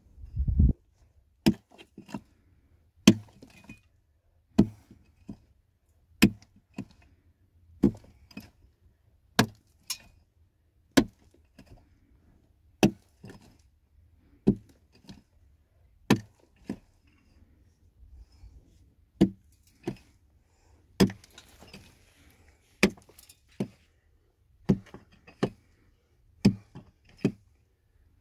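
A hand tool striking repeatedly in a steady rhythm, about one sharp blow every second and a half, most followed by a lighter knock.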